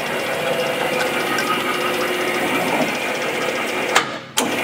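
Peddinghaus Perfeckt 32 CAB CNC rebar bender running through a bend cycle: a steady mechanical drive noise with a rapid fine clatter. About four seconds in there is a sharp click and the machine stops for a moment, then starts again.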